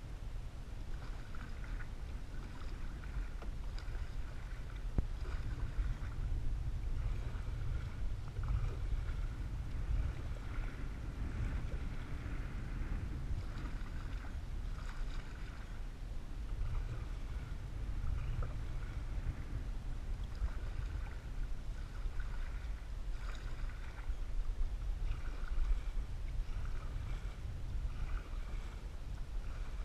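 Canoe being paddled across a lake: water splashes and swishes recur every second or two as the paddle strokes and the hull moves through the water, over a steady low rumble.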